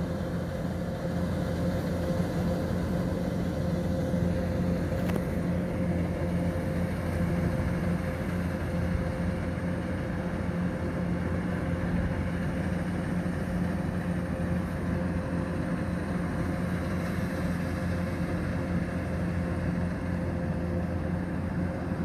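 Kubota DC-105X combine harvester running steadily as it cuts rice: an even diesel engine hum that does not change in pitch or loudness.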